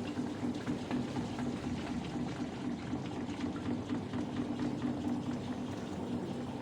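Samsung fully automatic top-load washing machine turning its drum between wash and rinse: a steady motor hum that pulses in short even beats, over a watery swishing of wet laundry.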